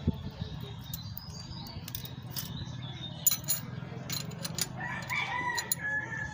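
Sharp metallic clicks of a ring spanner and screwdriver on a rocker-arm valve adjusting screw and locknut as valve clearance is set, in a cluster about three to four and a half seconds in. A rooster crows near the end, over a low steady hum.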